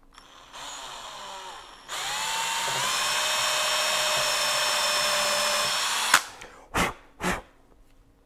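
Cordless drill driving a bridge screw into a wooden guitar body. The motor runs softly at first, then about two seconds in it speeds up with a rising whine and runs steadily for about four seconds. It stops with a sharp click, followed by two short bursts of the trigger.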